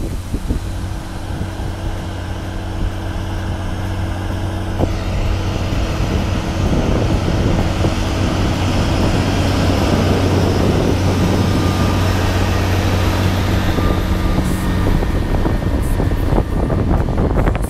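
Case Puma 165 tractor's six-cylinder diesel engine running steadily under load while pulling a plough, with a rushing noise that grows louder about five seconds in.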